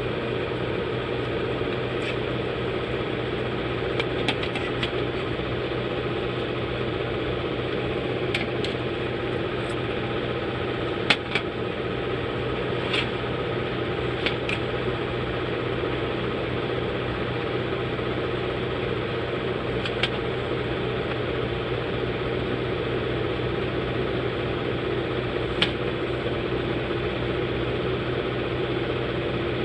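Steady hum of a small motor or fan running without a break, with a few light clicks and taps over it, the sharpest about a third of the way in.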